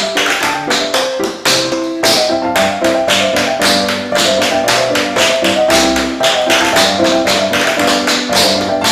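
Metal taps on tap shoes striking a wooden board floor in a quick, dense rhythm, over backing music. Two lines of the same tap combination play at once, the second started on the third beat, so the sounds stack and overlap.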